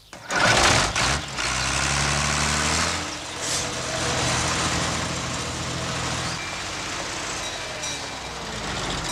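Zetor tractor's diesel engine starting with a sudden loud burst, then running steadily, its note shifting a couple of times.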